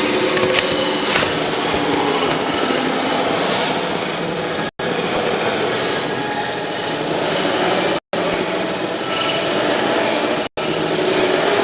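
Dense, harsh noise texture from a live experimental sound performance, with faint steady tones inside it. It cuts out abruptly to silence for an instant three times.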